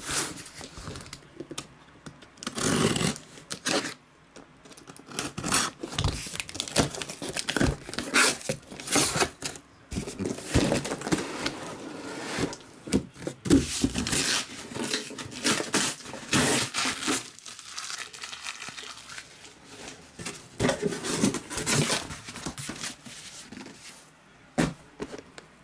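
Cardboard shipping case being opened by hand: tape tearing, cardboard rustling and scraping, with irregular knocks as the hobby boxes are pulled out and stacked.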